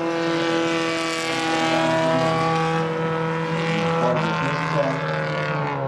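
Fiat 127 race car's four-cylinder engine running under load at steady high revs as the car pulls away, the pitch sagging slightly from about four seconds in.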